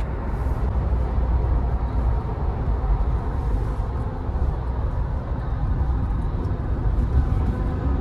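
Steady low rumble of a moving vehicle travelling along.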